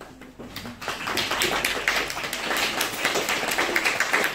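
A small group applauding in a small room: many hands clapping, starting about half a second in and quickly growing louder.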